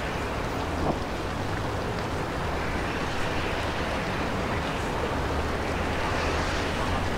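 Ambient sound-art soundscape: a steady rushing noise like wind and surf over a low droning rumble, swelling slightly near the end.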